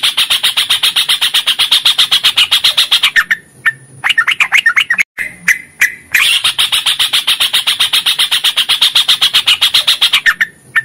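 Yellow-vented bulbul (trucukan) calling: a fast chattering trill of about ten notes a second, held for about three seconds. A short bubbly phrase of gliding notes follows, then a second long trill of about four seconds.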